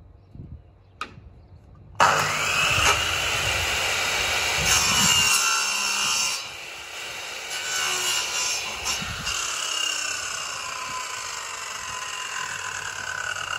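Electric drop saw (compound mitre saw) starting suddenly about two seconds in and cutting through a wooden frame strip. Its whine then slowly falls in pitch toward the end as the blade winds down.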